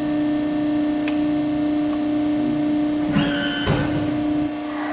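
Hydraulic press brake running with a steady hum that stops near the end. About three seconds in there is a brief high squeal and then a clunk as the ram makes a bend.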